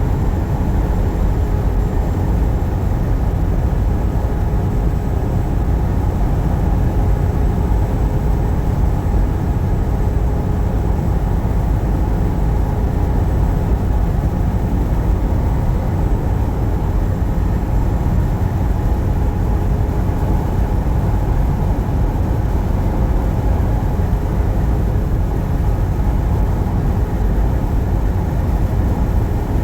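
Steady low rumble of a truck's engine and road noise while driving.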